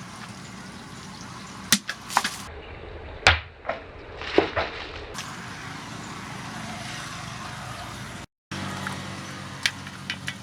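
Several sharp knocks and clicks, spaced irregularly, over a steady background noise. The sound drops out completely for a moment near the end.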